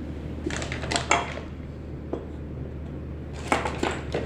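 Small metal parts, the fitting screws and mounting plate of a changeover switch, clinking and rattling as they are handled, in two short clusters about a second in and near the end, over a steady low hum.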